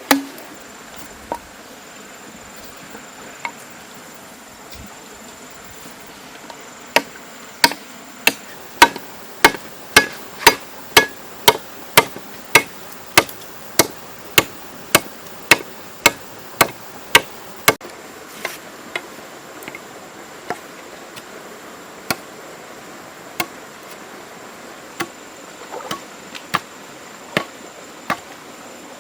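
A hand tool striking repeatedly with sharp knocks. A few scattered strikes come first, then a steady run of just under two a second for about ten seconds, then slower, scattered strikes again. A faint, steady high insect buzz runs underneath.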